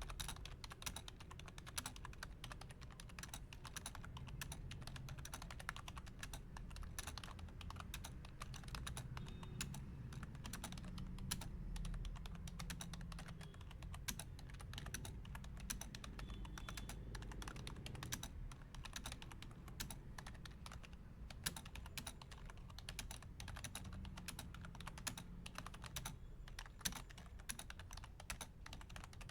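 Logitech K120 membrane keyboard being typed on fast and continuously, a rapid run of soft key clicks with an occasional louder stroke.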